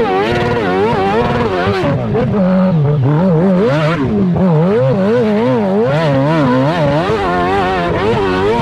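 High-horsepower hill-climb dirt bike engine, recorded close from the bike, revving hard up and down over and over as the throttle is worked under load on a steep climb.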